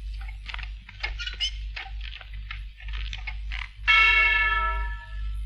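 A run of irregular clattering knocks, then about four seconds in a single loud bell strike that rings out and fades over about a second.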